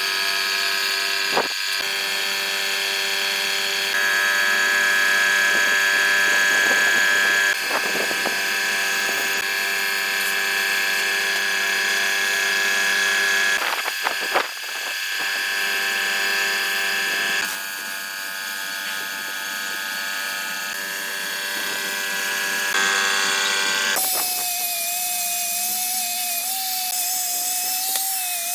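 Electric power tools running with a steady motor whine, the sound changing abruptly every few seconds as one tool gives way to another, with a few sharp knocks along the way.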